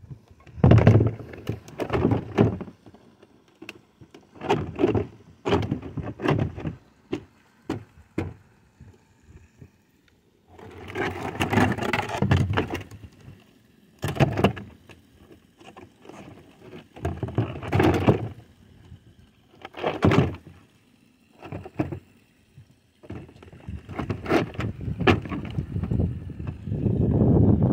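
Stone-coated steel roof tiles being handled and fitted: irregular knocks, clatter and scraping of the metal panels, coming in short spells with pauses between.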